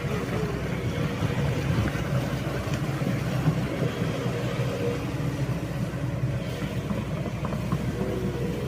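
Diesel engine of a Shantui SE75W wheeled excavator running steadily at a low, even speed.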